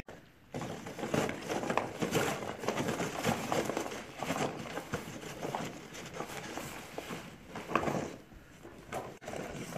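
A Vizsla nosing and pawing through a cardboard box of toilet-paper tubes: dense rustling, knocking and scraping of cardboard, easing off about eight seconds in.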